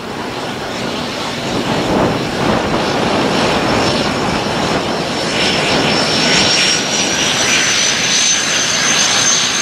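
A de Havilland Canada DHC-6 Twin Otter's two PT6A turboprop engines running as it taxis: a steady propeller drone with a high turbine whine on top. The whine grows louder and rises slightly in pitch over the second half.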